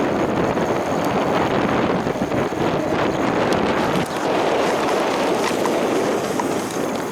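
Steady wind noise buffeting the microphone while riding an electric bike.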